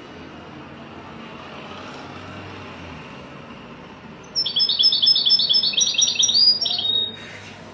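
Red-fronted serin singing: one quick phrase of rapidly repeated high notes lasting about three seconds, starting a little past halfway.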